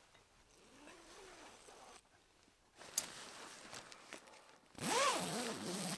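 Tent door zipper being pulled in short runs, its pitch rising and falling with the speed of the pull. The longest and loudest pull comes near the end, with a sharp click shortly before the middle.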